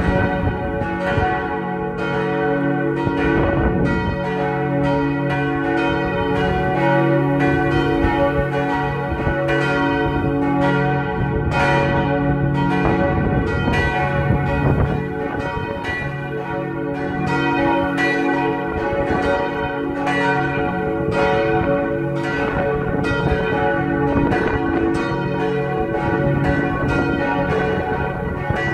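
Three swinging church bells cast by Otto in 1964, tuned cis, fis and ais', ringing together in a continuous peal. Their strokes overlap in an uneven run over a sustained hum.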